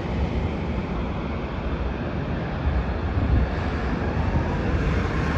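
Jet airliner's engines, a Boeing 737-900ER's CFM56-7B turbofans, giving a steady low rumble, with wind noise on the microphone.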